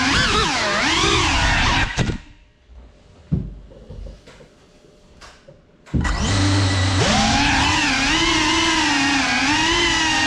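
Cinelog35 cinewhoop quadcopter's brushless motors whining, the pitch rising and falling with throttle. About two seconds in the motors cut out and it goes quiet apart from a few knocks as the drone lands on the floor, then the motors spin back up about six seconds in.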